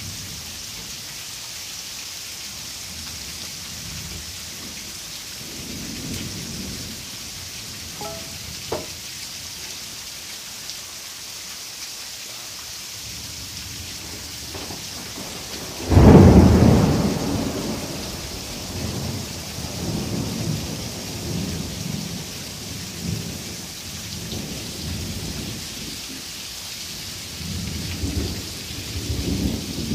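Heavy rain falling steadily, with a sudden loud thunderclap about halfway through that rolls on into a long low rumble rising and falling for several seconds. Fainter rumbles of thunder come a few seconds in and again near the end.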